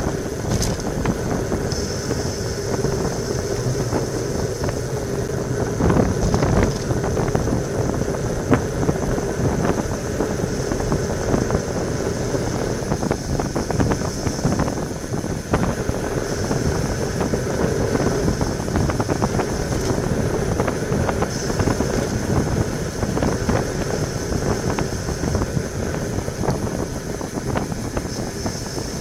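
Steady rush of wind on the microphone of a bike-mounted camera, with tyre hum and small rattles from a road bike coasting down a mountain road at about 35 to 43 km/h.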